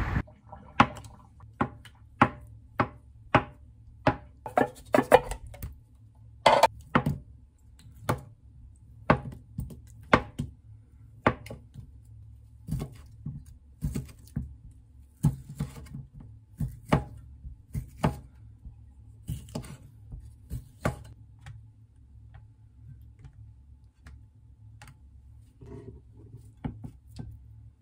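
Kitchen knife slicing sausages on a wooden cutting board: a run of sharp knocks as the blade meets the board, about two a second. The knocks stop about three-quarters of the way through, leaving a few faint taps.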